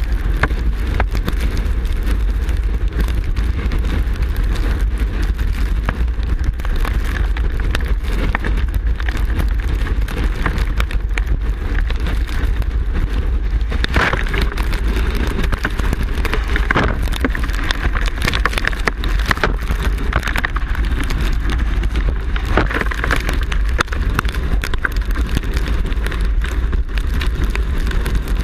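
Wind-driven heavy rain pelting a vehicle: a dense, constant patter of drops over a steady low rumble.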